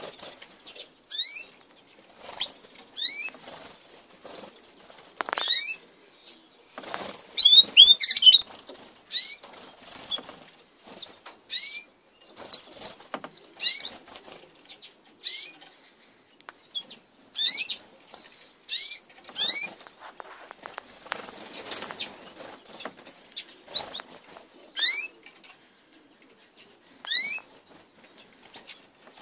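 Aviary goldfinches giving short, high, upward-sweeping call notes every second or two, with wing flutters and the clicks of birds landing and hopping on wooden perches. The loudest stretch is a flurry of wingbeats and calls about seven seconds in.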